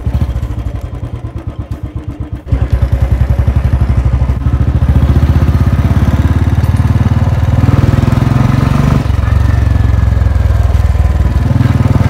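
Royal Enfield Bullet 350 single-cylinder engine, its silencer fitted with a whistle-type filter for a softer, old-model Bullet sound, running with a steady rapid exhaust thump. It idles at first, then gets louder about two and a half seconds in as the bike pulls away and rides on.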